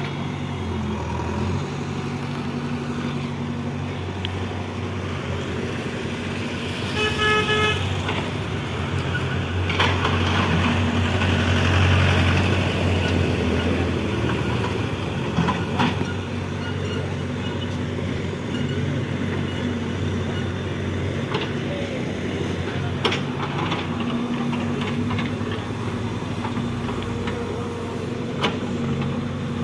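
JCB backhoe loader's diesel engine running and working as the backhoe digs soil from around a stuck truck's wheels, getting louder for a few seconds around the middle, with a few sharp knocks. A vehicle horn sounds once briefly about seven seconds in.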